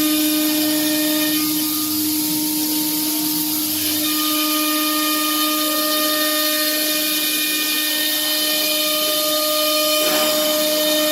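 A 1325 CNC router's spindle running with a steady high whine while the bit carves a wooden door panel, over a constant hiss of cutting; the upper part of the whine fades for a couple of seconds near the start, then returns.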